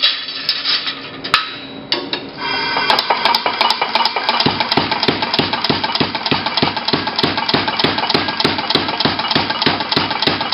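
Big Blu air power hammer hammering a flat steel bar in an incising die: a fast, even run of blows at about four a second, with a metallic ring. A steady hiss comes first. The blows start light about two seconds in and turn heavier from about four and a half seconds.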